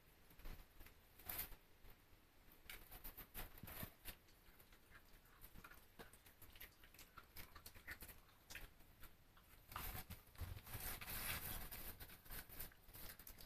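Faint scattered clicks and rustles of young dogs moving about and scuffling, with a busier stretch of rustling about ten to twelve seconds in.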